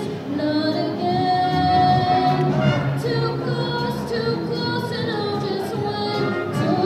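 School band of brass and saxophones playing a slow piece, with long held notes.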